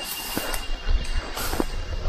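Hikers on the move on a night trail: a low rumble and scuffing, brief rustles and a few knocks from walking and gear. A steady high insect drone runs underneath.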